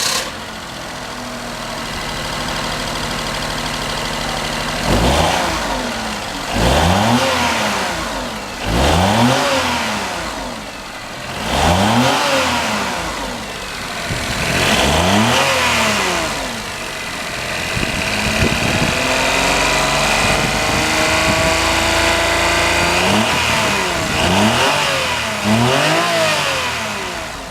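Daihatsu KF-VE 660 cc three-cylinder engine idling, then revved up and let fall back about eight times, one rev held for a few seconds about two-thirds through. It carries a slight rattling (kata-kata) that the owner notes as an abnormal noise.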